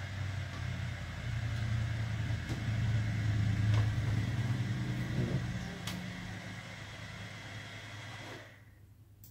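Steady low hum from the powered-up Ender 3 printer with its laser module, with a few light clicks over it; the hum swells a little, then fades and cuts off about eight and a half seconds in.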